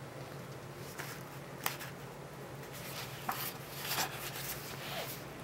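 Quiet handling of a paper art book: a few soft rustles and light clicks as pages are turned and the book is shifted, over a low steady hum.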